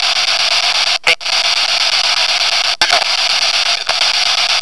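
Loud steady hiss of radio static, cut by short abrupt dropouts about a second in, near three seconds and again near four seconds.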